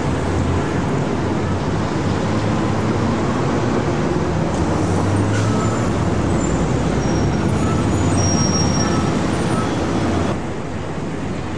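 Steady city street traffic: a continuous rumble of engines with a low hum under it. The level drops a little about ten seconds in.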